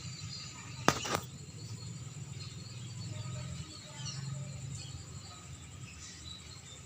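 Faint chirping of swiftlets over a steady high whine, with two sharp clicks about a second in.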